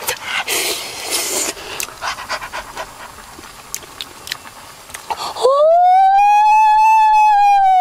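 A few seconds of scattered knocks and rustling, then about five and a half seconds in a loud, long dog-like howl from a man on all fours, rising in pitch and then held.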